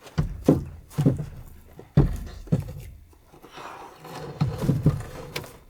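A series of irregular dull thuds and knocks, one every half second to second, with some scraping between them.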